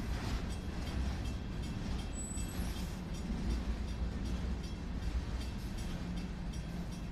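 Freight train rolling past at close range: a steady low rumble of steel wheels on the rails as tank cars and flatcars go by.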